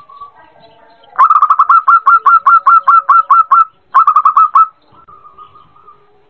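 Zebra dove (perkutut) calling: a rapid run of about fifteen short, hooked staccato notes over two and a half seconds, then after a brief pause a quick burst of about five more.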